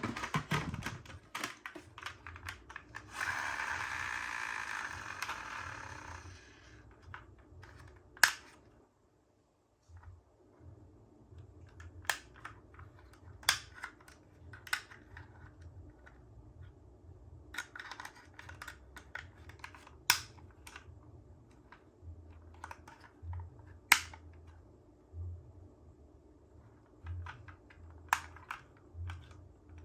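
Plastic toy cars being handled, giving scattered sharp clicks and taps. About three seconds in comes a rattle lasting about three seconds that fades out, fitting a toy car rolling down a plastic slide.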